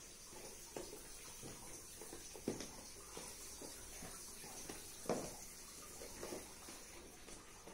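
Husky puppy pawing and pushing a small cardboard box across a stone tile floor: a handful of faint, scattered bumps and scrapes of cardboard on tile, the loudest about five seconds in.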